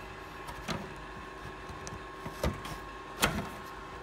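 Three light knocks and clicks as items are handled in a toolbox drawer, the last one the loudest, over a steady faint hum.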